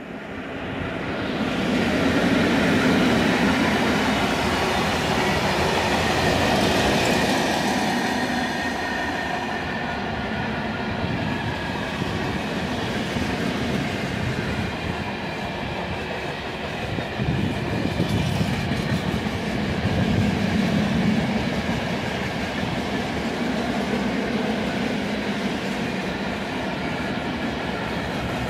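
An ET41 twin-section electric freight locomotive passes at speed, loudest about two to three seconds in. It is followed by a long train of open coal wagons rolling steadily by.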